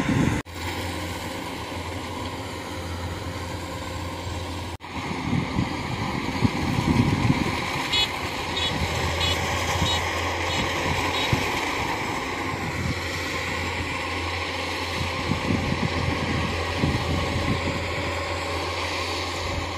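Rice combine harvester's engine running steadily at working speed while it cuts standing rice, a low even drone with noisy machinery sound over it. A short run of faint high chirps comes about halfway through.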